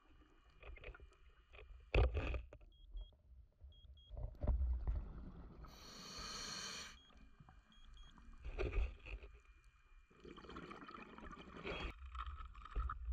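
Faint underwater sound of a diver breathing: a hiss of breath drawn through the gear about six seconds in, low bubbling rumbles of exhaled air at other points, and a few light clicks.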